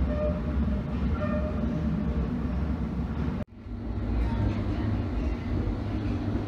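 London Underground train noise heard from inside an S Stock carriage: a steady rumble of wheels and running gear with a few faint brief whines. It is broken by an abrupt cut about halfway through, after which the rumble resumes.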